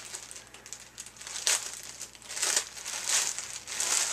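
Clear plastic packaging bag crinkling as it is handled and pulled open by hand, in several bursts that get louder toward the end.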